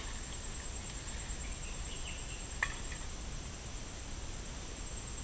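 Outdoor forest ambience: a steady high-pitched insect drone over a low rumble, with a few faint bird chirps and one sharp click about two and a half seconds in.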